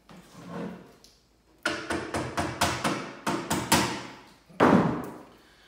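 Glazier points being tapped into an old wooden window sash with a small tool to hold the new glass: a quick run of about a dozen light taps, about five a second, then one louder knock near the end.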